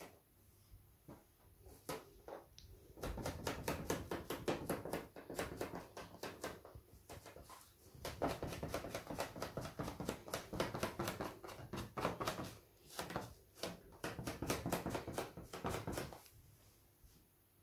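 Paint-covered rubber balloon pressed and dabbed quickly over and over onto a wet acrylic canvas, making fast sticky tapping and rubbing. It comes in two long spells with a short break between them, and stops a little before the end.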